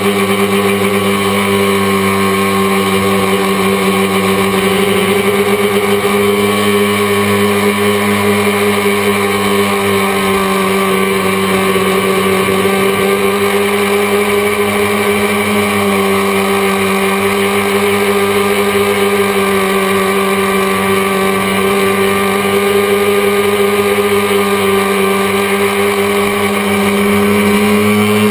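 Tricopter's three brushless motors and propellers whining steadily in flight, heard through the onboard camera. The pitch wavers slightly with the throttle and rises a little near the end.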